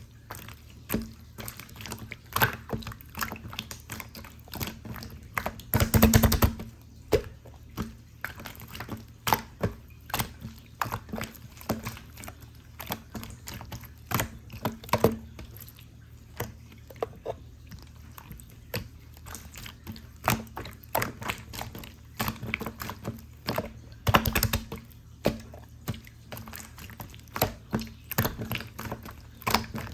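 Hands squishing and poking a pearl slime: a stream of short wet clicks and sticky pops, with two longer, louder squelches, one about six seconds in and one near twenty-four seconds.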